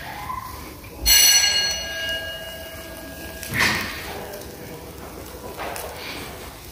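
Metal kebab skewers clanking against each other on the charcoal grill as they are handled. One strike about a second in rings out like a bell and fades over a second or two; a shorter clank follows a couple of seconds later.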